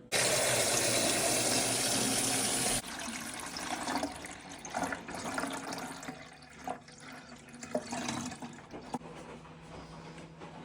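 Water from a tap running hard for about three seconds and cutting off abruptly, then quieter pouring and splashing as the fridge's water-dispenser tank fills, with a few light knocks.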